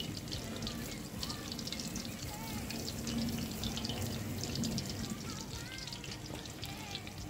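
Batter-coated asparagus deep-frying in hot oil in an enamelled cast-iron pot: a steady, dense crackling sizzle.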